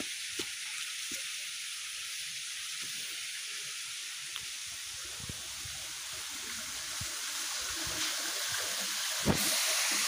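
Steady rushing hiss of a small waterfall spilling into a rock pool, growing louder near the end, with a soft thump about nine seconds in.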